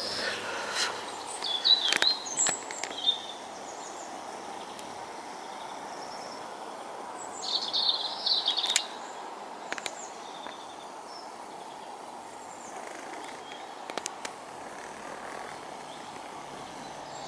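Small birds chirping in short bursts, about two seconds in and again around eight seconds in, over a steady outdoor background hiss.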